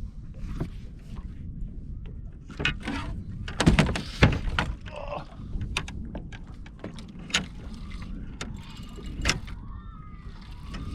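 Irregular knocks and bumps of handling in a small fishing boat, loudest in a cluster about four seconds in, over a steady low rumble.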